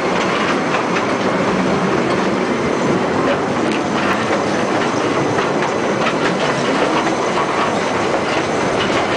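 Mine train cars rolling along rails: a steady clatter of wheels on track with scattered clicks.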